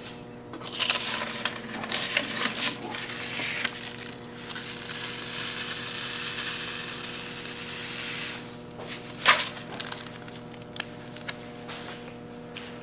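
Fine shredded CD and DVD particles being scraped together and poured off a folded sheet of paper into a small plastic bag. A steady hiss of grit sliding down the paper lasts a few seconds and stops, with rustling paper and clicks of plastic before and after.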